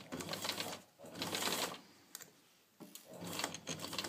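Domestic sewing machine stitching a short seam in stop-start runs while backstitching: two brief runs, a pause of about a second, then steady stitching from about three seconds in.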